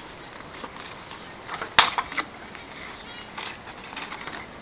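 Stiff semi-matte printed paper crinkling and crackling as it is bent and pressed together with masking tape, with a couple of sharp snaps about two seconds in.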